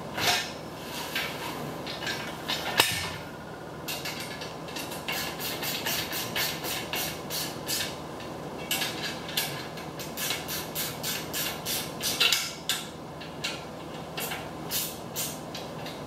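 Socket ratchet clicking in runs of sharp, evenly spaced clicks as it is worked back and forth, tightening the nylon lock nuts on the bolts of a steel hitch cargo carrier.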